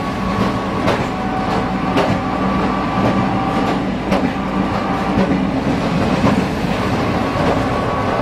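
Manyosen tram running along its street track, heard from on board: a steady rumble of wheels and running gear with a faint motor whine. The wheels click over the rail joints about once a second.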